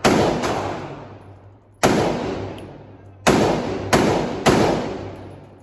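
AR-style rifle firing single shots on an indoor range: five sharp shots at uneven spacing, the last three quick in a row about a second apart, each ringing out in a long echo off the range walls.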